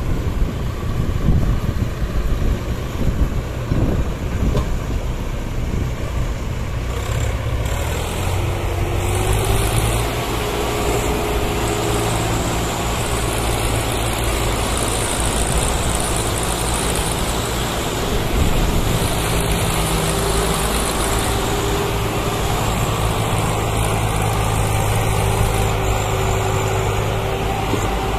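Swaraj farm tractor's diesel engine labouring under heavy load as it hauls a fully laden soil trolley, hard enough to lift its front wheels. A continuous low engine note, rough and uneven for the first several seconds, then steady.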